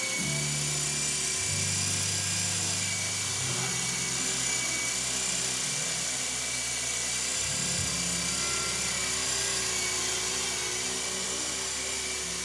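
Micro co-axial electric RC helicopter hovering: a high whine from its small electric motors over the hum of its twin rotors, the hum stepping up and down in pitch several times as the throttle is worked.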